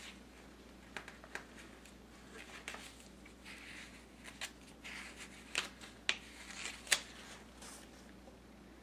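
Faint paper rustling and a scatter of soft clicks as the pages of a paper book are handled and turned.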